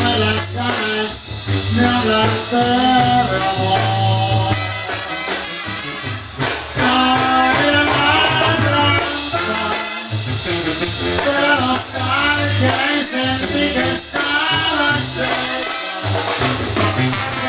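Live banda sinaloense music: trumpets, clarinets and drum kit playing together with a steady bass line, heard from the crowd at a concert.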